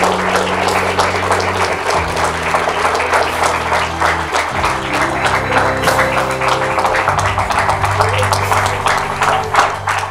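A room of people applauding steadily, over music with held low notes that change every couple of seconds.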